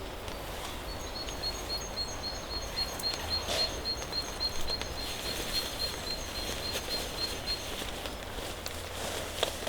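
A small bird repeating one short, high note about three times a second for several seconds, over a steady forest background hiss. A few sharp knocks come near the end.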